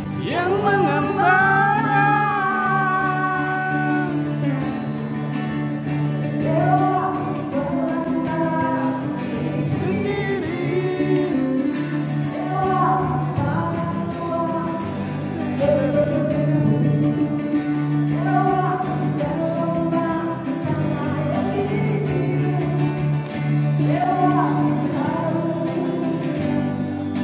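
Music: a voice singing long, bending melodic lines over steady instrumental accompaniment.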